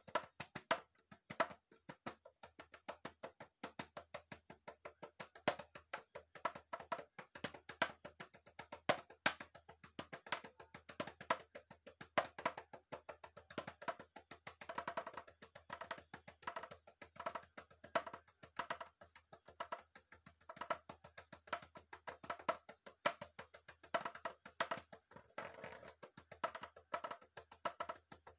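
Homemade percussion instrument, a round pink plastic body, struck rapidly with sticks in a fast, dense rhythm. Each hit is a sharp, hollow knock with a short pitched ring.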